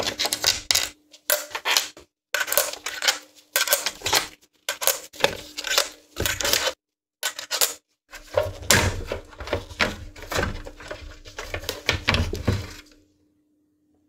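Long screws being taken out of an Xbox One S's metal shield with a screwdriver and set down on the metal plate: repeated small metallic clinks and rattles.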